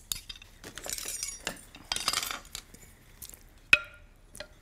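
A metal ladle scraping and clinking against a glass bowl as set, jellied broth is scooped out. There are a few short scooping scrapes and light clicks, and one sharp, ringing glassy clink a little over three and a half seconds in.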